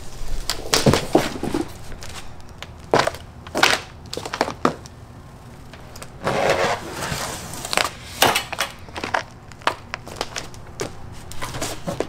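Irregular clunks, knocks and clicks of a Mokwheel Basalt ST e-bike's frame, handlebar and fork being handled and turned upright on cardboard, with a longer scraping rustle about six seconds in.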